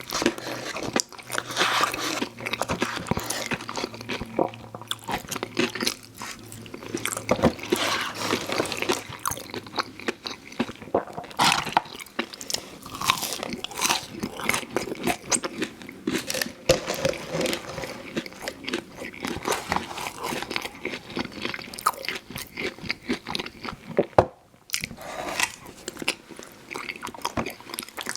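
Close-up eating sounds: crisp, crunching bites and chewing of crunchy fried food, a steady stream of irregular crackles and crunches with a brief pause about 24 seconds in.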